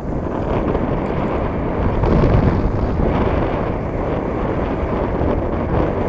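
Wind buffeting the camera microphone: a loud, steady rumbling rush that swells about two seconds in.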